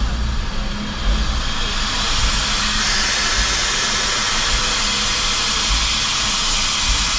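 Steam hissing steadily from a 1924 Baldwin 2-6-6-2T Mallet steam locomotive, growing louder about three seconds in, over a low rumble.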